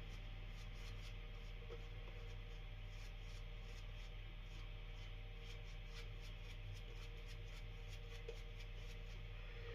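Shaving brush working lather with faint, quick, irregular brushing and rubbing strokes, over a steady low hum.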